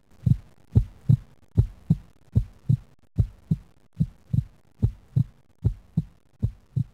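Heartbeat sound effect: a steady lub-dub of short low thumps, about 75 beats a minute.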